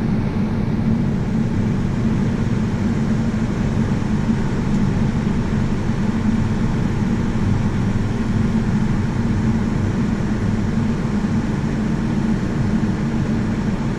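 Farm tractor pulling a grain cart in a corn field, its engine running steadily with an even low drone.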